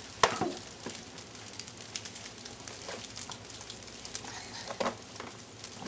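Steady rain pattering, with scattered light taps and a couple of brief, sharper sounds, one just after the start and one near the end.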